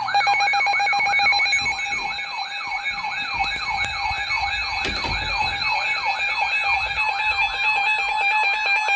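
Electronic emergency alert siren: a tone that sweeps up in pitch over and over, about three times a second, above a steady wavering high tone. Near the end it switches to a fast pulsing beep. It is the alert sound ahead of a severe thunderstorm warning.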